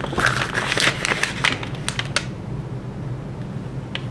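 Paper receipt being unfolded and handled, crinkling and crackling for about two seconds, then quieter with a few more crackles near the end.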